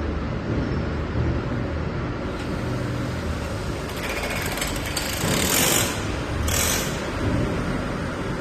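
CNC machine shop machinery running steadily with a low hum, and two short hissing bursts about five and a half and seven seconds in.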